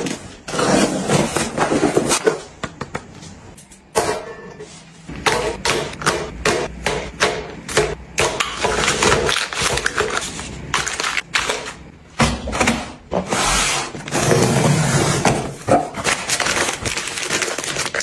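Hands handling packaging at close range: a cardboard shipping box being opened and unpacked, plastic and paper wrappers crinkling and rustling, and small packets clicking against a metal wire basket as they are stacked in. The sound is a dense run of short crackles and taps, with a longer stretch of rustling a little after the middle.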